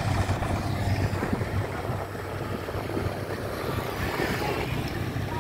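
Engine of a Kubota combine harvester running steadily as it cuts rice, a low drone. About two seconds in it drops to a quieter, more distant engine sound.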